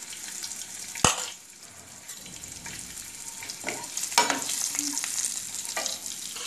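Cumin seeds, green chillies and coriander powder sizzling in hot oil in a non-stick kadhai, stirred with a slotted spatula that knocks and scrapes against the pan. There is a sharp knock about a second in, and a louder one about four seconds in.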